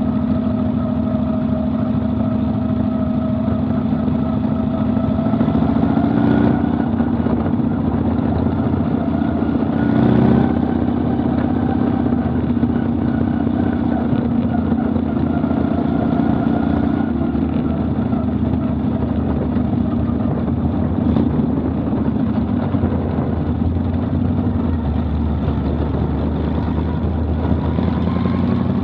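Vintage modified race car engine running steadily, heard from inside the open cockpit, its pitch rising and falling a little with the throttle. Two brief knocks come about six and ten seconds in.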